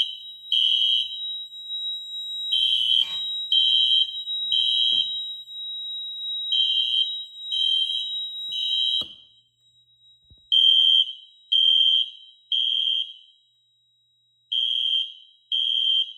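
System Sensor SpectrAlert Classic P24110 horn sounding the temporal-3 evacuation pattern coded by a Fire-Lite MS-5024 fire alarm panel: three short horn blasts, a pause, then three more, repeating. Beneath it the alarm panel's piezo sounders hold a steady high beep, which drops in level partway through. There are occasional sharp relay clicks.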